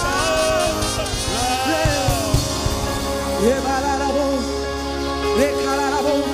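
Live gospel worship music: a woman lead singer sings held, sliding notes over steady band accompaniment, with a few rising vocal swoops.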